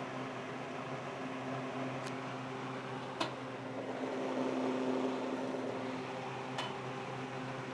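GE 14-inch two-speed box fan running steadily: an even rush of air over a low motor hum. A few light clicks come through, the sharpest about three seconds in.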